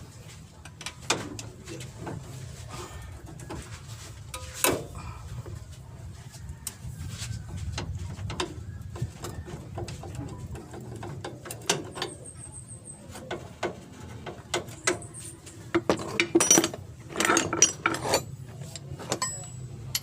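Metal hand tools and engine parts clinking and clattering in irregular knocks during engine teardown work, busiest near the end, over a low steady hum.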